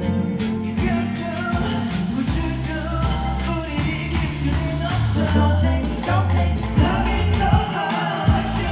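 Two male singers performing live into handheld microphones over instrumental backing music.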